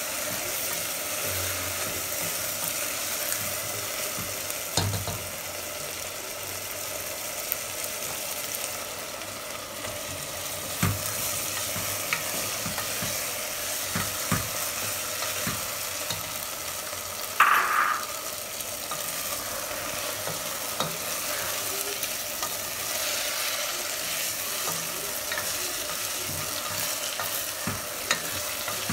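Chicken pieces frying in oil in a pot, a steady sizzle, stirred with a spatula that knocks and scrapes against the pot now and then. Sliced tomatoes are frying with the chicken. There is one brief, louder clatter about two-thirds of the way through.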